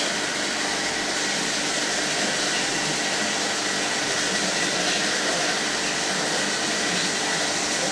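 35 mm cinema projector running with its lamphouse lit, its motor and ventilation fans making a loud, steady whirring rush with a faint high whine.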